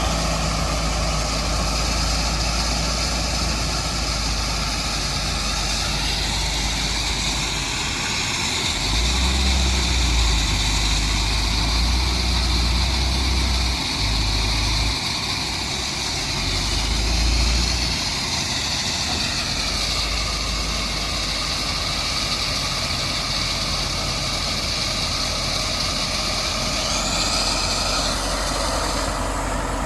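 Heavy diesel machinery running steadily, a deep engine rumble under a high whine that shifts in pitch a few times.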